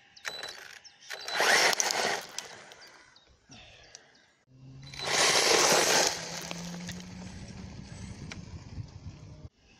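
Electric Maverick Strada short course RC truck driving on dirt and gravel: motor whine with tyres scrabbling on loose stones, in two loud bursts about a second in and about five seconds in, then a steadier lower hum that cuts off just before the end.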